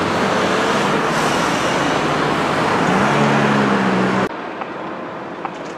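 Road traffic noise from cars driving close by, with a vehicle engine's hum coming in about three seconds in. The sound cuts off abruptly about four seconds in, leaving a quieter street background with a few faint ticks.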